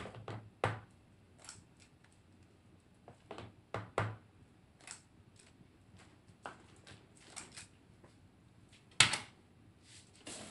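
Scattered clicks and knocks of a metal scoop against the bowl and a metal llanera mold as batter is scooped into the mold, with one louder knock about nine seconds in.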